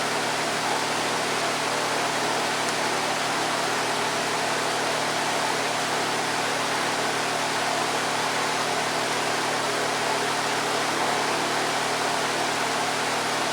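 Electric shop fan running steadily: an even rushing air noise with a constant low hum under it.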